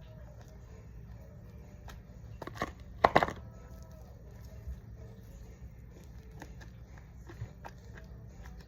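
Slime being squished and kneaded with shaving cream mixed in, with small sticky clicks and a cluster of loud wet pops and crackles about three seconds in.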